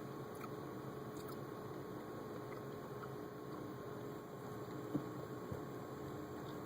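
Faint, steady hum and hiss inside a car's cabin, with one small click about five seconds in.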